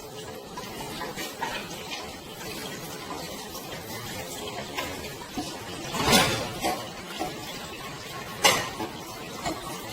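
Scattered light clicks and clinks over a steady background hiss, with two louder sharp knocks, about six and eight and a half seconds in.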